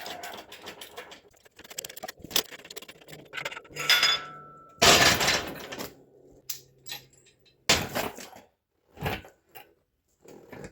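Metal parts and hand tools clinking and clattering in a series of sharp knocks, with a few louder scraping bursts. This is the sound of an engine being worked on.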